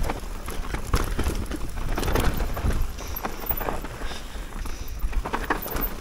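Mountain bike riding down a dirt singletrack: tyres on the dirt and the bike rattling and knocking over bumps, with wind rumble on the microphone.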